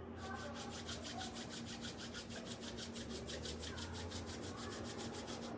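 Bare palms rubbed briskly together, a fast even swishing of skin on skin at about seven strokes a second, warming the hands for eye palming.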